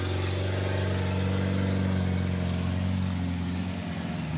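Diesel engine of a small, heavily loaded pickup truck running hard under load on a steep climb, a steady low drone that dips slightly near the end.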